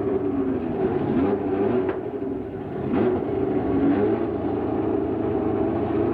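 1970s Formula 1 race car engines running at high revs, several engine notes overlapping and rising and falling in pitch.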